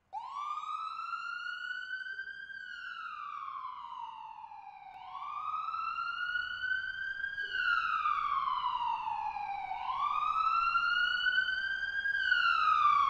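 Emergency vehicle siren in a slow wail, its pitch rising for about two and a half seconds and falling for about two and a half, three times over, growing louder.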